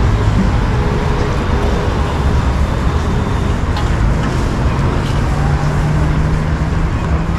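City street traffic: a steady wash of vehicle noise. About five seconds in, a low, steady engine hum from a nearby vehicle joins it.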